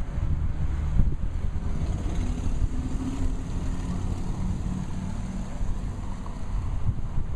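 Fuel pump dispensing diesel, a steady low rumble with wind buffeting the microphone, and a single knock about a second in.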